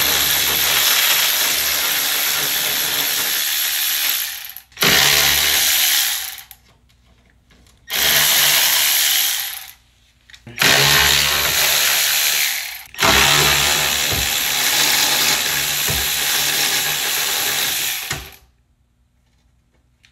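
Cordless power tool spinning a socket on an extension, backing out the bolts that hold up a Jeep Wrangler YJ's fuel tank. It whirs in five runs of a few seconds each, with short pauses between them, and the last run is the longest.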